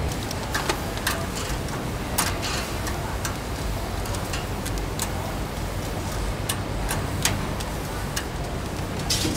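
Scattered sharp clicks and ticks at an irregular pace from grilling over a charcoal grill, the kind made by charcoal crackling and metal tongs tapping the grate, over a low steady hum.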